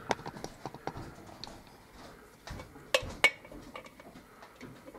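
Small metallic clicks and light scraping of a lock pick and tension wrench working in a euro cylinder lock, with two sharper clicks about three seconds in.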